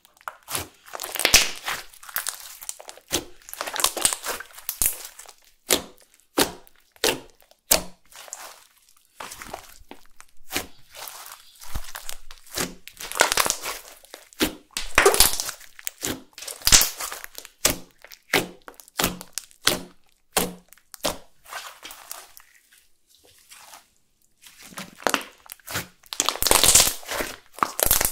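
Hands kneading and folding a large mass of clear slime mixed with red makeup powder and glitter: irregular sticky pops and crackles as it is pressed and stretched, with a brief lull about three quarters through.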